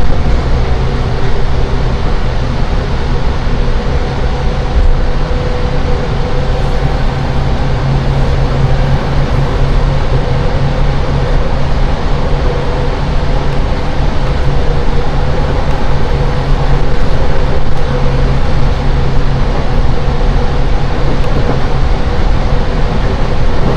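Seibu 10000 series Red Arrow limited express train running, heard inside the passenger car: a loud, steady rumble with a low hum held at one pitch.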